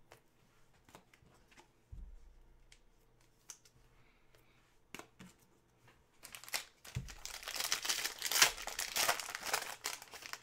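A few light clicks of cards being handled and set down, then from about six seconds in, the foil wrapper of a Panini Prizm football hobby pack crinkling and tearing loudly as it is ripped open by hand.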